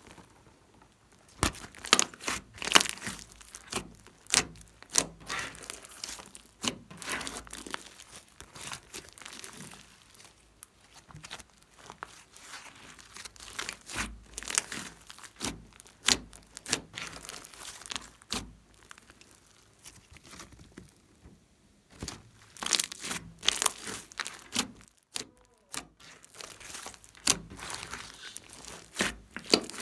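Slime mixed with foam beads being kneaded, pressed and stretched by hand, giving irregular crackles and pops in clusters with a few short pauses.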